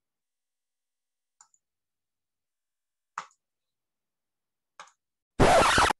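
Near silence with a few faint ticks. Near the end, a sudden loud half-second sound starts and stops abruptly, like an edited-in cut.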